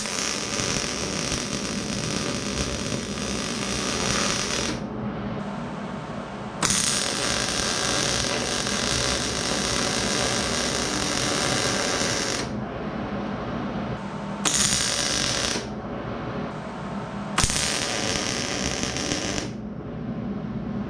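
Wire-feed welder laying welds on a steel canopy post: four runs of steady arc crackle, two long ones of about five seconds each, then two short tacks, with pauses between them. A steady low hum runs underneath.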